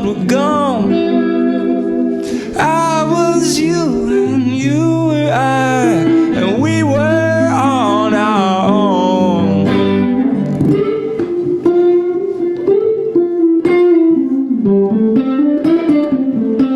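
Stripped-down song on guitar, an instrumental passage with no lyrics. For about the first ten seconds long, wavering melody notes ring over sustained low notes. After that, plucked guitar notes carry on in a quicker pattern.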